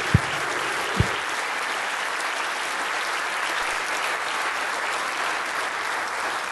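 Audience applauding steadily, with two short dull thumps in the first second or so.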